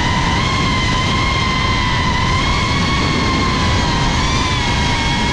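GEPRC CineLog35 cinewhoop FPV drone in flight, its brushless motors and ducted propellers heard through the onboard camera: a steady high whine with overtones over a rushing noise, the pitch dipping and rising a little as the throttle changes.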